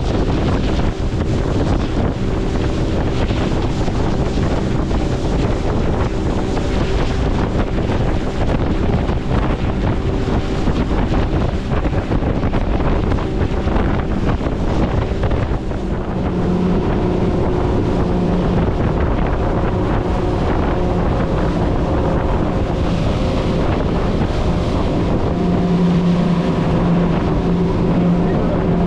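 World Cat 295CC catamaran under way: the steady drone of its twin outboard engines under wind buffeting the microphone, with the rush of water along the hulls. The engine note stands out more plainly in the second half.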